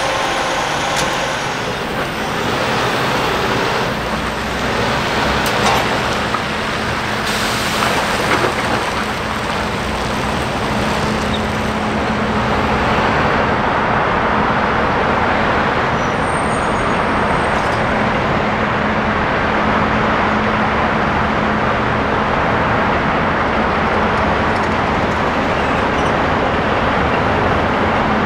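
A heavy truck engine running steadily amid road traffic noise, with a brief hiss about seven seconds in.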